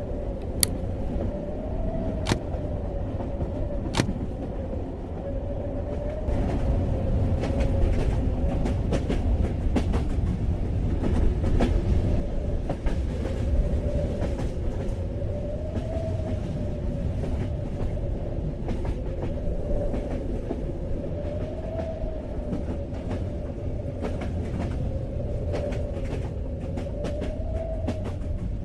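Train running on rails: a steady low rumble under a humming tone that slowly wavers up and down. Three sharp clicks come in the first few seconds, then a long run of rapid clicks from the wheels and rails.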